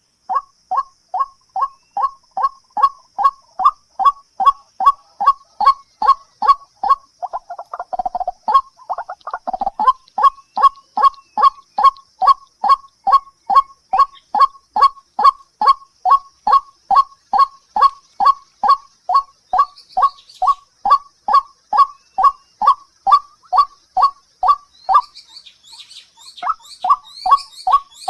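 A bird calling: one short, honking note near 1 kHz repeated very evenly, about three to four times a second, with a short break near the end.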